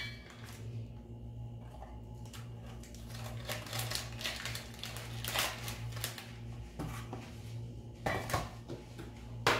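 A metal spoon clinks and scrapes against a stainless steel bowl as spice powder is spooned in. The sound comes in scattered clicks, busiest mid-way and again near the end, over a steady low hum.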